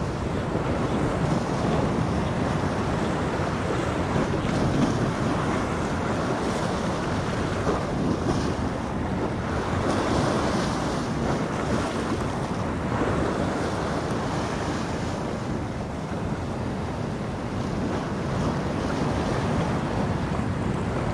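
Atlantic surf washing in and wind buffeting the microphone: a steady rush of sea and wind noise.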